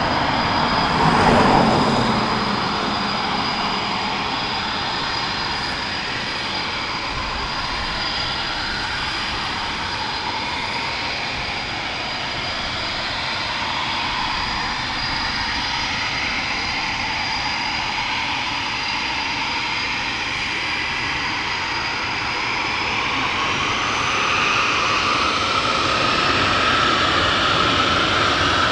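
Jet aircraft engines running with a steady high whine over a dense rushing noise. There is a brief louder swell about a second in, and in the last five seconds the whine rises in pitch and the sound grows louder.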